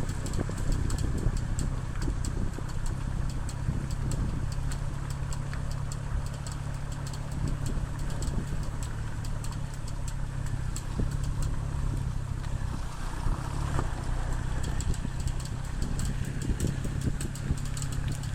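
Ford Focus ST running, with a rapid repeating tick from the driver's side that sounds like a card flicking bicycle spokes, over steady engine and road noise.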